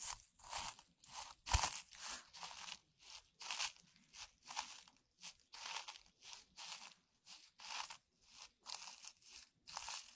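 Close-miked crisp crunching and crinkling of a handled object, in short bursts coming about one to two times a second.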